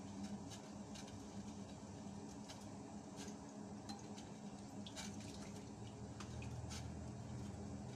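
Faint, irregular snaps and ticks of raw cauliflower florets being broken apart by hand and dropped into a wok, over a steady low hum.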